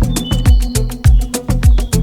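Deep house dance music: a steady kick drum about twice a second, with crisp hi-hat ticks between the beats and sustained synth tones underneath.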